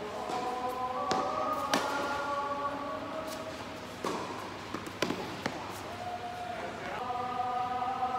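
Tennis ball being struck by rackets and bouncing on a hard court during a rally, five sharp pops spread over several seconds. Background music with held notes plays underneath.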